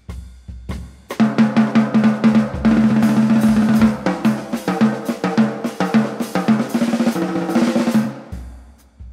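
Jazz drum kit played alone: a few bass drum hits, then from about a second in a fast, dense run of strokes around the ringing toms and snare with cymbals, which stops about eight seconds in.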